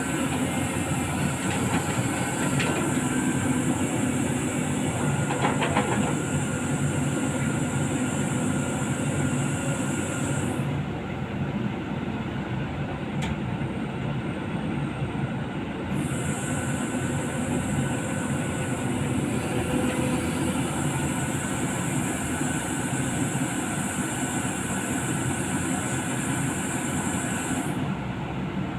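Caterpillar 320D hydraulic excavator's six-cylinder diesel engine running steadily under working load, with a high hiss that comes and goes twice.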